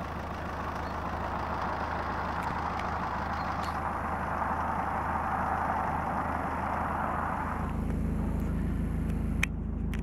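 Delivery van's engine idling, heard from inside the cab, with a steady hiss over it that stops about three-quarters of the way through. After that the engine's low drone is clearer.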